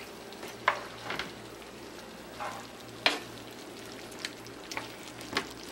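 Curry shrimp sauce simmering in a frying pan while a wooden spoon stirs in cornstarch slurry, with a steady sizzle and a handful of sharp knocks of the spoon against the pan.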